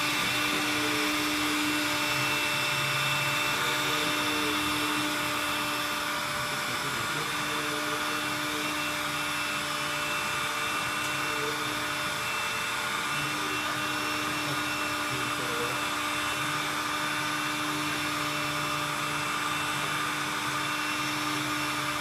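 WS-600 window-cleaning robot running: its suction fan motor whirs steadily with a constant hum, holding the robot against the board as it crawls across it.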